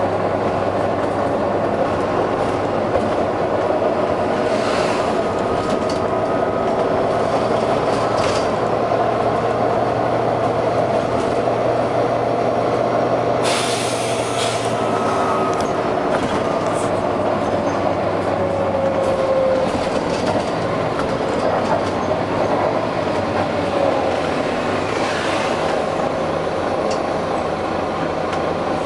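Volvo B9TL double-decker bus with its six-cylinder diesel engine running under way, a steady drone with rumble and rattle. A short sharp air hiss about 13 seconds in, and the engine note changes about 18 seconds in.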